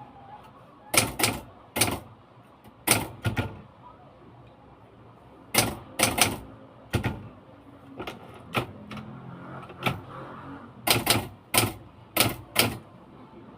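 Typewriter keys being struck slowly and unevenly, one sharp clack at a time, mostly in groups of two or three with pauses between: a beginner practising typing.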